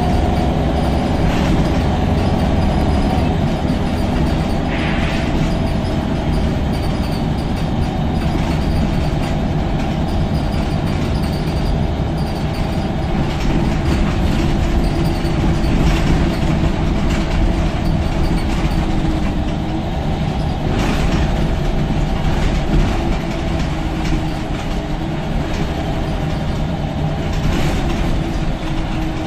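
Scania L94UB bus under way, heard from the rear seats: the rear-mounted nine-litre five-cylinder diesel running with a steady low rumble and engine note that drifts slightly in pitch, over road noise, with scattered knocks and rattles from the body and fittings.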